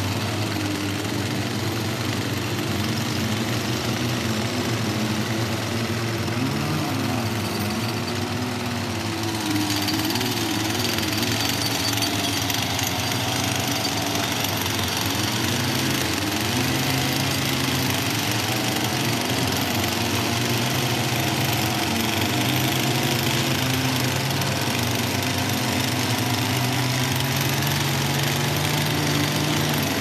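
Petrol-engined handheld rock breakers running steadily as they hammer into the jade-bearing rock, with the engine pitch wandering slightly. The sound gets brighter and a little louder about ten seconds in.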